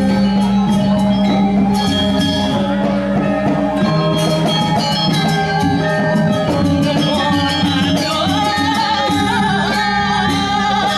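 Balinese gamelan playing the music for a Telek masked dance: layered, ringing struck-metal tones over a dense run of quick strokes.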